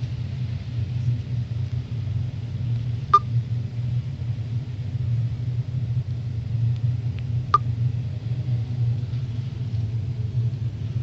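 Steady low rumbling hum, with two short sharp clicks, one about three seconds in and one about seven and a half seconds in. The recorder is unsure whether the hum is one of the mysterious noises reported around the world.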